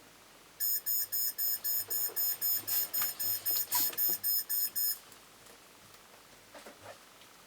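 Smart alarm clock sounding its alarm: a rapid run of high-pitched electronic beeps, about four a second, that goes on for about four seconds and then stops. A few faint knocks follow near the end.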